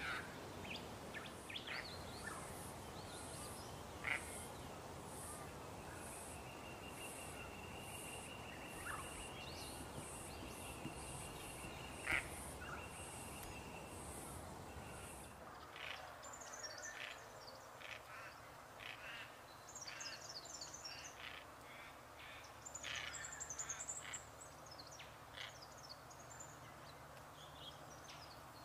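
Wild birds calling: scattered short calls and chirps, denser in the second half. In the first half they sit over a high, evenly repeating pulse about once or twice a second and a long thin steady trill.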